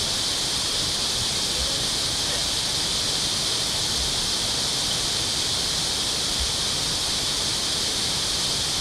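A steady high hiss, even and unchanging.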